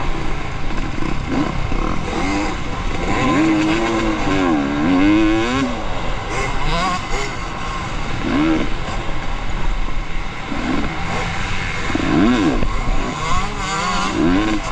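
Off-road racing motorcycle engines revving up and down again and again, their pitch rising and falling repeatedly.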